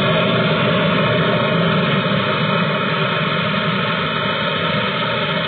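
Gas brazing torch flame hissing steadily while heating a copper refrigerator capillary tube to braze it onto a brass quarter-inch fitting.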